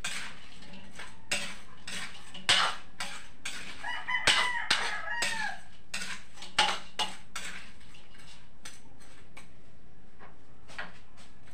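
Metal spatula clinking and scraping against a wok as shrimp are stirred, in a string of sharp clicks. A rooster crows once about four seconds in.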